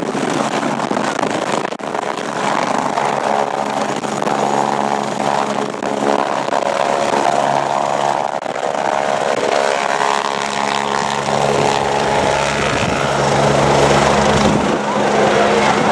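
Jet aircraft engines in a flying display, a steady loud rush with a humming whine that swells and fades as the aircraft pass.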